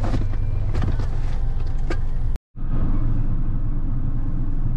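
Car driving, heard from inside the cabin: a steady low rumble of engine and road noise, with a few short clicks in the first half. The sound drops out for a moment about two and a half seconds in, then the rumble picks up again.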